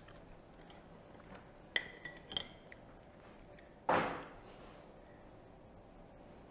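Chopsticks and a bamboo skewer clicking and clinking as grilled food is pushed off the skewer: a few light, ringing clinks about two seconds in, then a louder sound near four seconds in that fades over about half a second.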